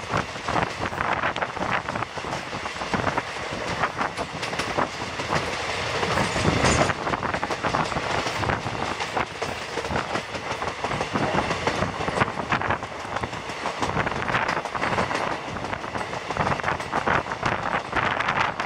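Passenger train coach running at speed, heard from an open window: a steady rumble of wheels on rail with a rapid clatter of wheel ticks over the track.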